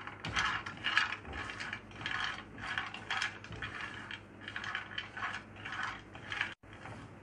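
Whole cashew nuts rattling and scraping across a dry nonstick frying pan as a silicone spatula stirs them while they dry-roast, in repeated strokes about twice a second. The sound cuts out for an instant near the end.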